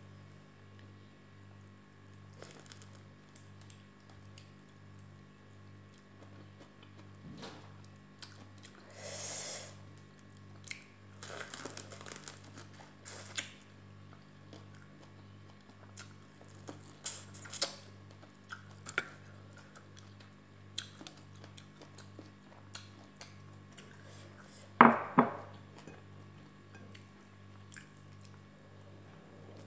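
A person eating whole prawns by hand: chewing, sucking at the prawn heads and crunching shell, with scattered short clicks and knocks, the sharpest about 25 seconds in. A steady low hum runs underneath.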